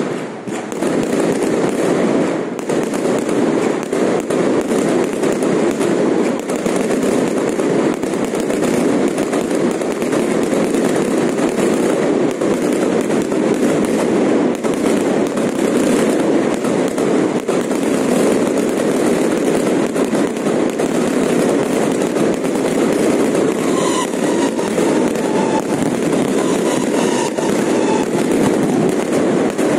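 A long string of firecrackers going off in a dense, continuous crackle of rapid pops, loud and unbroken.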